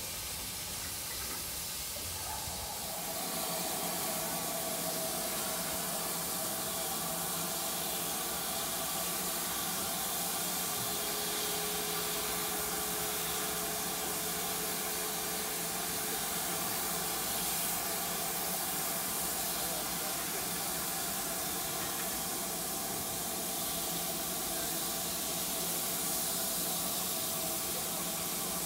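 Steady hiss of steam from a steam locomotive standing at a platform, with a few faint steady tones under it.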